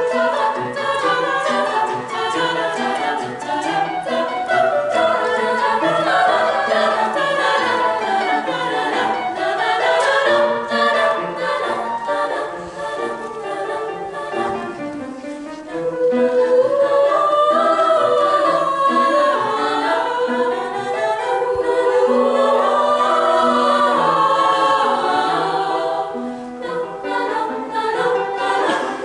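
Choir singing an aleatoric piece, many voices in loose, overlapping lines; it swells suddenly louder a little past halfway.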